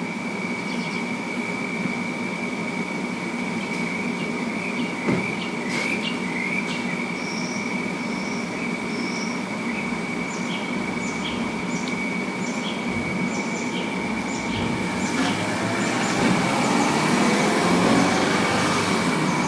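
A steady high-pitched mechanical whine over a rumbling noise, which grows louder in the last few seconds. A few faint short chirps come about a third of the way in, and light ticks repeat at a regular pace after that.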